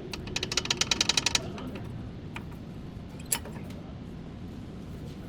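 Ratchet wrench clicking: a quick, even run of about a dozen clicks in about a second, then a few single metallic clicks.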